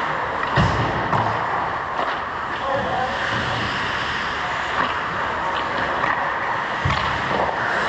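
Steady noise of an indoor ice rink during play, with a few faint clicks and two dull thuds, one about half a second in and one near the end.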